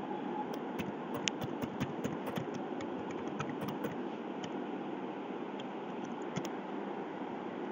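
Computer keyboard keys clicking as a short line of text is typed, over a steady low hiss. The clicks come thickest in the first couple of seconds, then only a few scattered ones.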